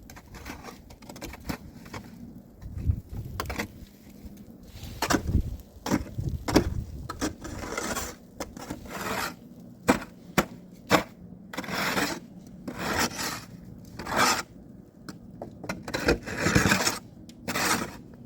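Snow shovel working through deep snow: irregular scrapes and crunches as the blade is pushed in and the snow is lifted and dumped, with a few short, sharp knocks between the longer scrapes.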